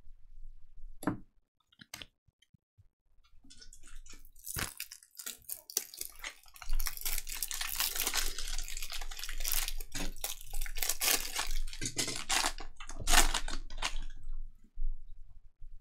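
Foil wrapper of a Donruss basketball trading-card pack being torn open and crinkled by hand: a few light clicks, then a dense crinkling from about four seconds in until near the end.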